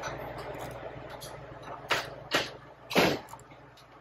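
Hand wrench with a Torx bit tightening bolts on a supercharger's gear case: three sharp metallic clicks about two seconds in, the last loudest, over a steady low machine hum that fades away.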